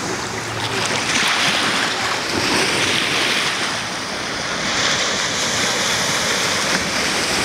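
Small sea waves breaking and washing up onto a sandy beach: a steady surf hiss that swells and eases.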